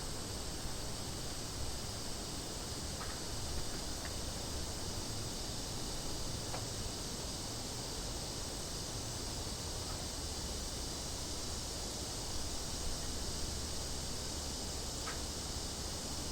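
A chorus of cicadas buzzing in a steady, high-pitched drone that never breaks, over a faint low rumble.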